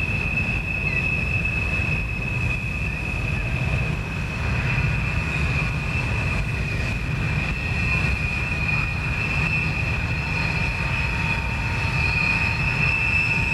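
A passing train with its wheels squealing steadily against the rails, one high held tone over a low rolling rumble. It swells a little near the end.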